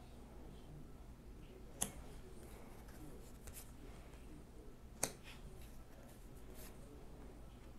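Tarot cards being laid down one at a time on a wooden tabletop: two sharp taps about three seconds apart, the second the louder, with faint rustles of cards sliding from the deck.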